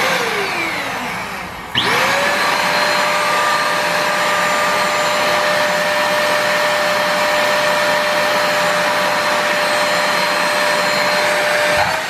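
Britânia Dust Off 1000 W cyclone vacuum cleaner motor switched on for a quick test. It spins down with falling pitch in the first second, is switched on again about two seconds in, and quickly whines up to speed. It then runs steadily with a high whine over rushing air, with a brief dip near the end.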